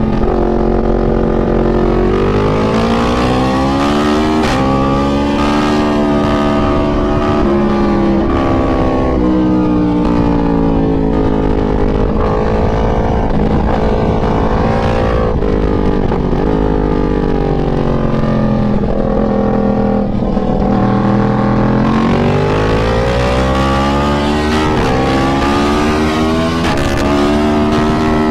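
Yamaha MT-10's crossplane inline-four engine heard from onboard on a track lap. The revs climb and drop as the bike accelerates and slows for corners, with a long fall in pitch near the middle and a climb again toward the end.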